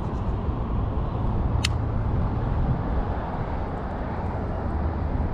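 Steady low outdoor rumble, with a single sharp click about a second and a half in.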